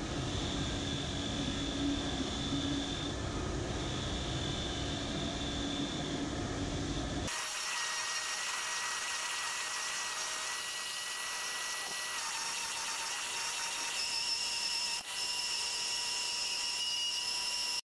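Bench grinder running with a wire wheel, a Mugen heptagon steel wheel nut held against it and wire-brushed: a steady machine hum with a hissing scrub and whining tones. About seven seconds in the sound changes suddenly: the low hum drops away and higher steady whines remain.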